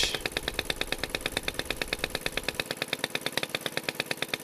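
BSA 300-watt ex-military charging set's small four-stroke engine running steadily, a fast even beat of about ten exhaust pulses a second; quite loud. It is running smoothly on its freshly rewound magneto coil.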